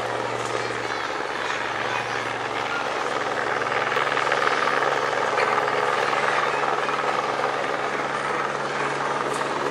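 Aerospatiale AS355N Twin Ecureuil helicopter flying by: steady rotor and twin turboshaft engine noise, growing louder toward the middle and easing off slightly near the end.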